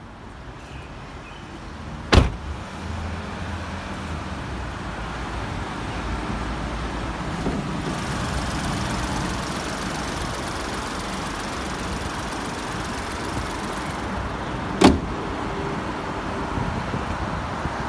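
Volkswagen Polo engine idling steadily, with two loud slams: a car door shutting about two seconds in and the bonnet being shut near the end.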